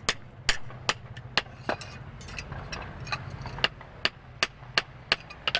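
Hand hammer striking a steel cleaver blank, forged from truck leaf spring, on an anvil: a steady run of sharp, ringing blows, about two to three a second, some lighter than others.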